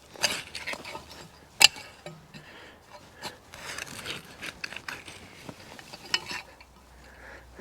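A garden fork digging and scraping through soil while potatoes and clods rub and knock together, in an irregular run of scrapes and clicks. A sharp knock about a second and a half in is the loudest sound.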